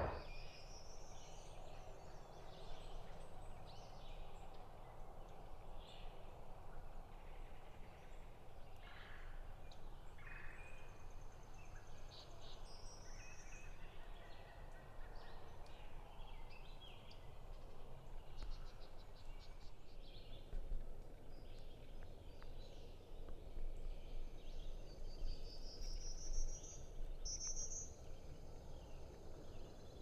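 Wild turkey gobbling faintly among calling songbirds, with several quick rising whistled notes from the songbirds.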